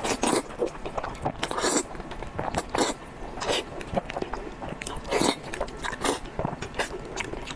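A person biting and chewing food, a string of irregular crunches and mouth clicks of a mukbang eater.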